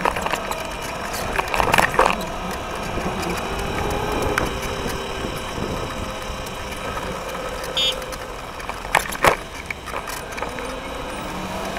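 Electric scooter riding on asphalt, picked up by a camera mounted low on the deck: steady road and wind noise with the scooter rattling over the rough surface, and sharp knocks from bumps about two seconds in and again about nine seconds in.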